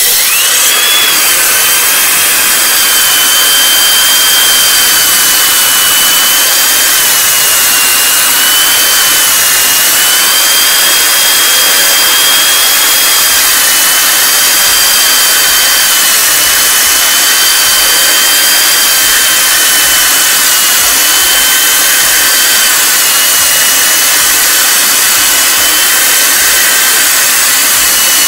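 A rotary hammer drill in drill-only mode (no hammering) turns a 125 mm diamond core bit into a masonry wall to score the circle for a stove-flue hole, with a vacuum cleaner running at the bit. It starts abruptly and gives a loud, steady high whine over a grinding hiss.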